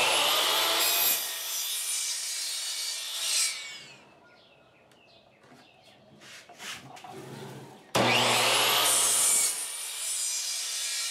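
Craftsman sliding miter saw starting with a rising whine, its blade cutting through a wooden 1x10 board, then winding down. After a short pause with a few soft knocks as the board is slid up to the stop block, the saw starts again about eight seconds in for a second cut.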